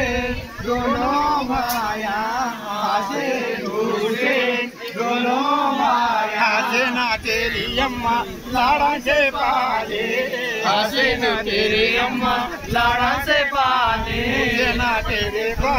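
Male voices singing a Muharram devotional chant, the pitch wavering and held on long sung notes, with more than one voice.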